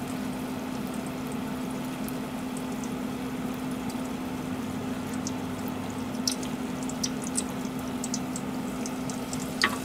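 Battered lotus-root kakiage frying in a pot of hot oil: a steady bubbling hiss over a steady low hum, with scattered crackles from about six seconds in and a sharper crackle near the end as another battered clump goes into the oil.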